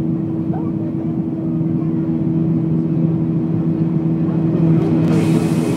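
Cabin noise of a Boeing 737 in the climb after takeoff: its jet engines drone steadily with a low two-note hum under rushing air. About five seconds in, a brighter hiss of airflow comes up.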